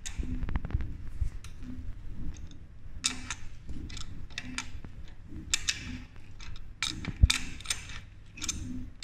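Adjustable steel wrench clicking and scraping against the rear axle nut of an electric bike's hub motor as it is fitted and turned to loosen the nut, in short irregular bursts that thicken in the second half. A faint low pulse repeats about every second and a half underneath.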